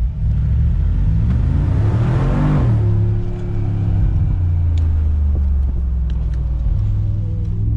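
Mercedes-AMG G63's 4.0-litre twin-turbo V8 pulling under acceleration, its revs climbing, with an upshift about three seconds in and another near the end.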